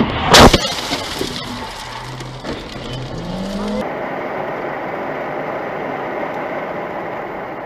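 A loud crash of two cars colliding about half a second in, followed by a few seconds of scraping and settling noise. Then steady road and engine noise heard from inside a car cruising at highway speed.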